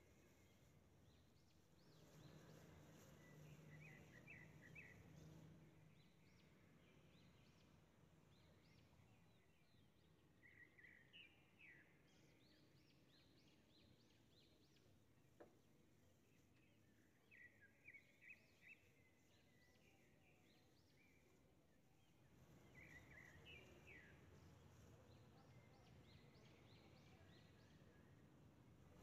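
Near silence: faint background ambience with quiet bird chirps coming in short runs, four times.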